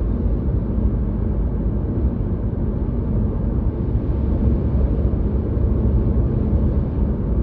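Car driving at highway speed: a steady low rumble of tyres on the road and engine noise.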